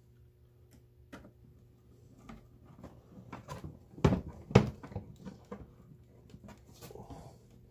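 Hands fitting small screws into a metal piano hinge on a wooden boat seat: scattered light clicks and taps, with two louder knocks about half a second apart around four seconds in.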